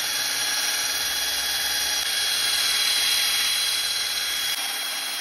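Drill spinning a medium foam polishing pad steadily against a painted helmet surface, working in polishing compound: a constant motor whine with a high steady tone over the pad's rubbing.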